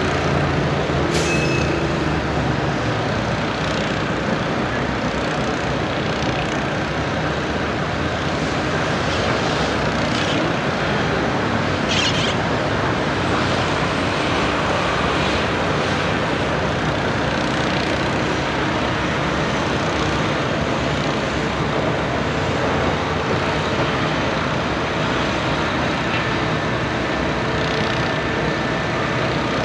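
Heavy diesel construction equipment running steadily on a street, mixed with traffic noise. There are two short hisses, one about a second in and one about twelve seconds in.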